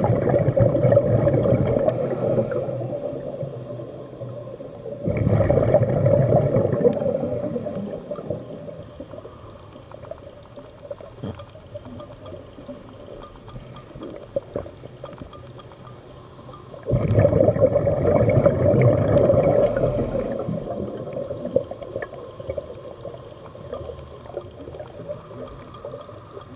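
Scuba diver's exhaled breath bubbling out of the regulator underwater, in three bursts that each start suddenly and fade over a few seconds: at the start, about five seconds in, and about seventeen seconds in. Faint clicks are heard between the bursts.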